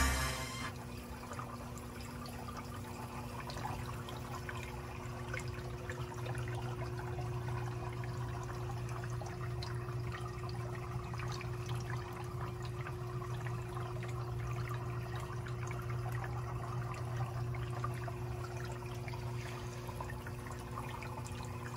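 Reef aquarium sump and protein skimmer running: water steadily trickling and bubbling over a low, steady pump hum.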